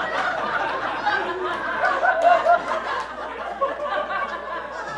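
Comedy club audience laughing, the laughter slowly dying down.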